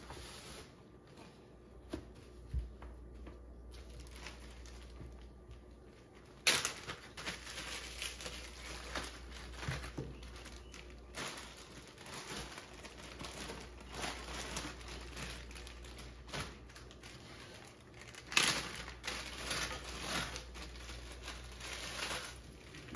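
A few light clicks, then food going into a hot frying pan about six seconds in and sizzling steadily for a stir fry, with a second loud burst of sizzle later on.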